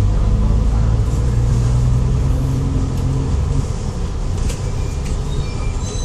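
Inside an Alexander Dennis Enviro500 double-decker bus on the move: the engine and drivetrain run with a steady low drone that eases off a little over halfway through.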